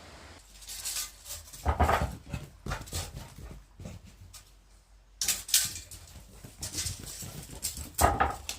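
A dog making short, irregular whimpering and panting sounds, with the strongest bursts about two seconds in and near the end.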